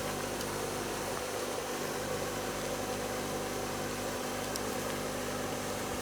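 A steady mechanical hum with several constant tones over an even hiss, unchanging throughout.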